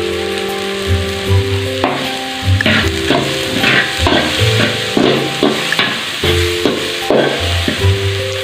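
Chopped onion and garlic sizzling in oil in an aluminium pot, with a metal ladle stirring and scraping the pot bottom in repeated strokes from about two seconds in. Background music plays underneath.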